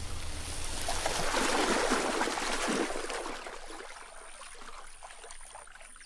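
Water sloshing and trickling, swelling about a second in and then fading away. A faint high chirping repeats in the second half.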